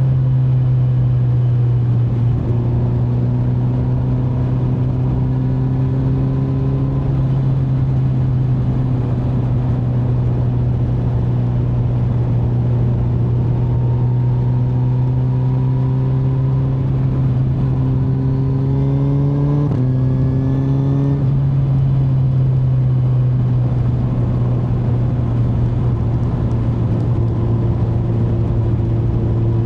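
2025 Kawasaki Z900's inline-four engine pulling under load on a ride. Its pitch climbs slowly and drops suddenly at each upshift, a few times.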